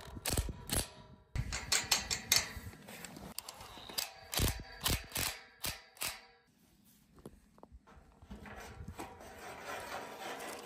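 Steel livestock panels clanking and rattling as a clamp is fitted to join them, a run of sharp irregular metal knocks, then a cordless impact driver snugging the clamp bolt tight.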